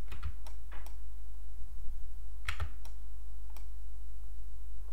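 Scattered clicks of computer keys and a mouse, a handful of separate presses spread over a few seconds, over a steady low hum.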